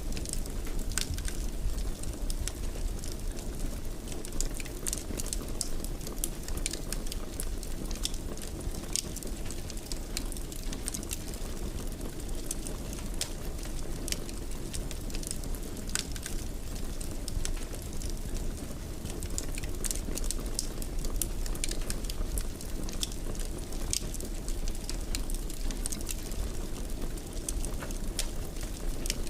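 Wood fire crackling in a fireplace: a steady low rumble of flames with frequent sharp, irregular pops and crackles.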